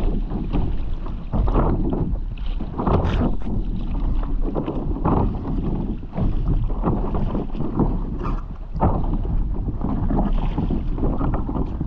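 Stand-up paddleboard paddle splashing into the water and pulling through every second or two, with water slapping at the board, under a steady rumble of wind on the microphone.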